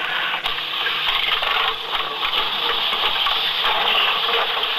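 Steady rushing hiss with many scattered sharp clicks and crackles, over a faint low hum.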